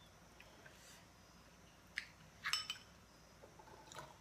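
Quiet room with faint tableware sounds: a soft click about two seconds in, then a short clink with a brief ring, like a spoon against a ceramic rice bowl, about half a second later, and another small click near the end.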